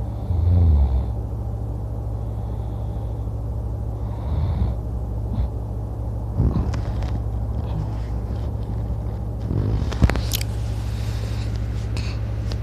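A man snoring in his sleep: low, rough snores several seconds apart, the loudest about half a second in, over a steady low hum. A few sharp clicks come in the second half, one about ten seconds in.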